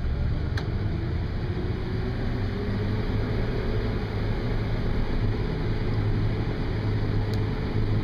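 Case IH 7120 combine heard from inside its cab while harvesting corn: the steady drone of the diesel engine and threshing machinery, with two small clicks, one about half a second in and one near the end.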